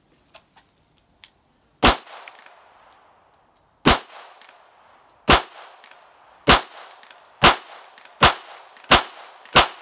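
GSG Firefly .22 LR pistol firing eight shots, each followed by a short ringing echo. The shots come about two seconds apart at first and quicken to under a second apart near the end. It is loaded with 36-grain copper-plated hollow points, the ammunition that has been giving it cycling failures.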